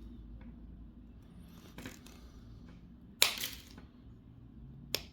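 Handling noise from a Cat 6 Ethernet cable and an RJ45 plug: a few light clicks and rustles. The loudest is a brief scrape about three seconds in, and a sharp click comes near the end.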